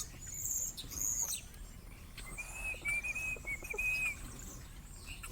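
Backyard birds chirping: high, thin chirps in the first second or so, then a run of short, evenly pitched notes for about two seconds in the middle.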